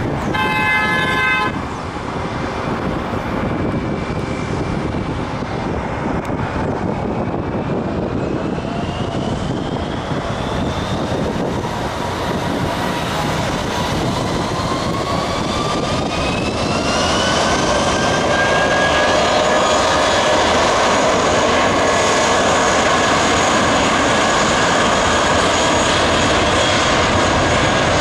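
Airbus A320 jet engines spooling up on the runway for takeoff: a whine rising in pitch over the first half, then loud, steady engine noise at takeoff thrust as the plane accelerates. A brief high tone sounds at the very start.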